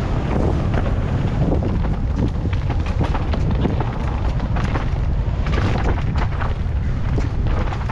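Mountain bike riding fast down a dirt forest trail, heard from a rider-mounted camera: steady wind buffeting on the microphone, with tyres on loose dirt and scattered knocks and clatter from the bike over bumps.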